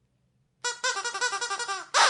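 Squeaky dog toy squeezed over and over: a fast run of short, high squeaks, about nine a second, each dipping in pitch, starting about a third of the way in.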